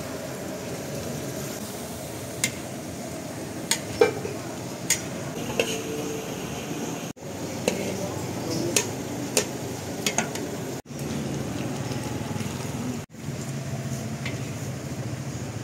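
Prawns sizzling in sauce in a large steel wok, stirred with a metal spatula that clinks against the pan several times.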